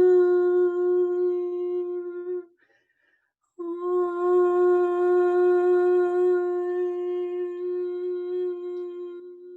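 A sound-healing tone held on one steady pitch with rich overtones. It breaks off for about a second after two and a half seconds, as if for a breath, then starts again and is held. Near the end it fades as a lower second tone joins.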